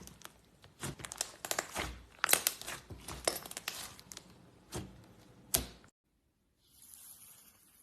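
Slime being squeezed and stretched, giving irregular crackles, pops and sticky clicks. About six seconds in the sound cuts out abruptly, then a faint hiss follows.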